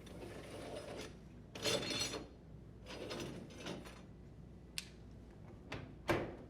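A dishwasher's upper rack being slid off its slide rails, with rubbing and scraping of the rack along the rails in three short pushes, then a few sharp clicks near the end.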